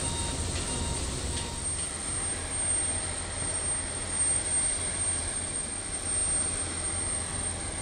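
Embraer 170 jet airliner's turbines running steadily: a low rumble under an even hiss, with a thin, steady high whine.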